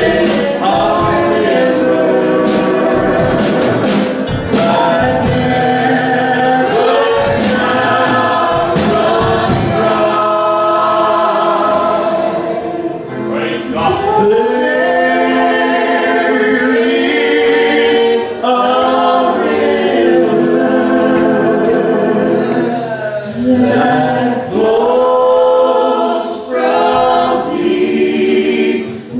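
Gospel vocal ensemble of two men and two women singing in harmony through microphones, accompanied by acoustic guitar.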